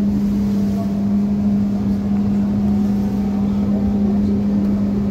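Dnipro-T203 trolleybus in motion, heard from inside the passenger cabin: a steady low hum that holds one pitch, over even road and tyre noise.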